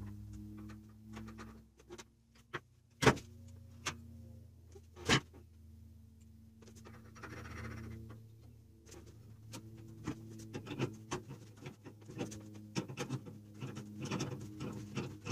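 Knocks and clicks of hands working on a metal water heater unit: two sharp knocks a few seconds in, a brief rustle, then a run of small clicks and taps. A steady low hum runs underneath.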